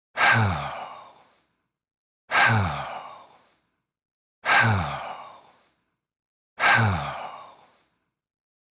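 A man's sigh, a short 'ah' that falls in pitch and fades away, repeated four times about two seconds apart: the same stock sound effect played on a loop.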